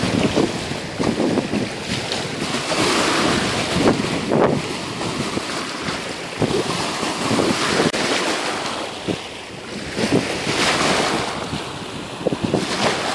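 Small waves lapping and splashing, with gusty wind buffeting the microphone, rising and easing in gusts.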